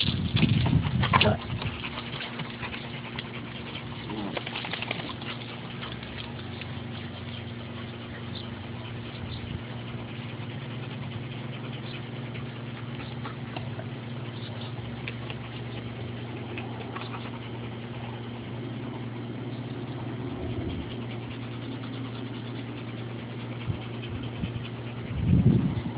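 An adult dog panting, with puppies' paws scrabbling on gravel in the first second or so and again near the end. A steady low hum runs underneath.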